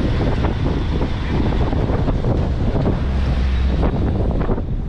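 Wind buffeting the microphone: a loud, uneven low rumble.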